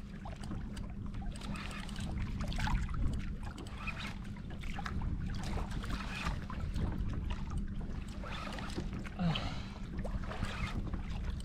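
Water lapping and sloshing against a kayak hull in repeated washes every second or so, over a steady low wind rumble on the microphone.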